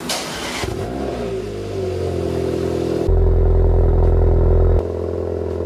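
Porsche Macan 2.0T's turbocharged four-cylinder cold-starting through a Fi valvetronic cat-back exhaust with catless downpipe: a burst of noise as it fires, the engine note sweeping up about a second in, then settling into a steady idle. For about a second and a half in the middle the low exhaust drone is much louder.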